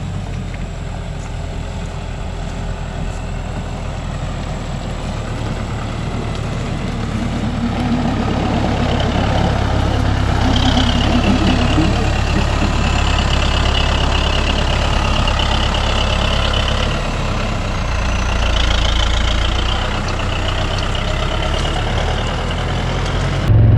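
Engine of the hay-feeding machine running steadily while a round bale of hay is put out, getting somewhat louder partway through, with a wavering higher whine joining about ten seconds in.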